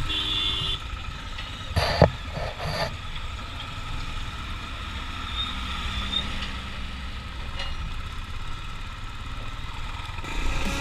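Motorcycle engine running as the bike rides along, with wind on the microphone. There is a short loud thump about two seconds in, and music comes in near the end.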